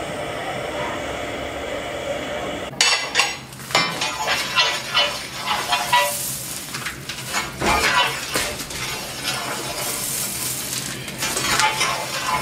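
A steady hiss of steam being blown off, then from about three seconds in a long iron fire tool scraping and clanking over the grate and burning coal inside a coal-fired steam boiler's furnace, in an irregular run of metallic scrapes and knocks.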